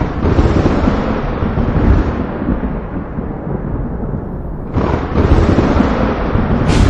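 Thunder rolling in a thunderstorm: a deep rumble that swells at once and fades over about four seconds, then a second peal breaks sharply about five seconds in and rolls on.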